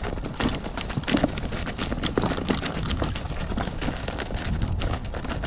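Continuous clattering and knocking of a descent over a bumpy, rocky track, with irregular jolts over a low steady rumble like wind on the microphone.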